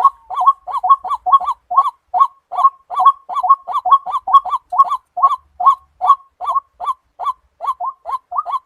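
White-breasted waterhen calling: a loud, unbroken series of short, harsh notes repeated about three to four times a second.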